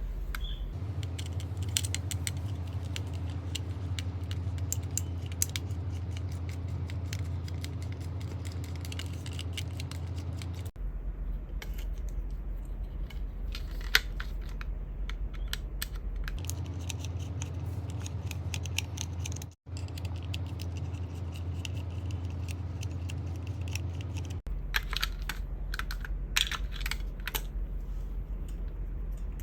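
Small clicks, taps and rattles of plastic and metal parts being handled while an old Sony pocket radio is taken apart, over a steady low hum.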